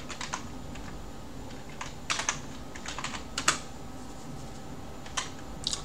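Computer keyboard being typed on: short, irregular runs of key clicks with pauses between them.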